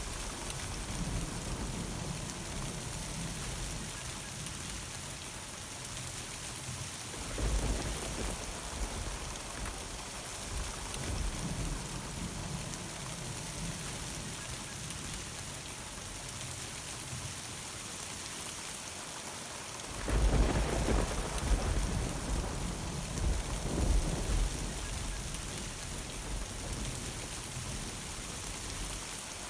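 Steady rain falling, with thunder rumbling in low swells: one about a quarter of the way in and a louder, longer peal about two-thirds of the way through.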